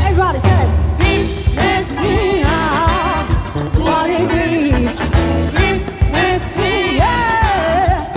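Live funk band playing, with a woman singing lead over drums, bass and electric guitars.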